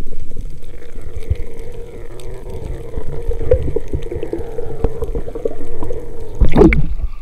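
Muffled underwater sound picked up by a submerged camera: a low rumble of moving water with scattered clicks and a steady hum. A louder swirl of sound comes about six and a half seconds in.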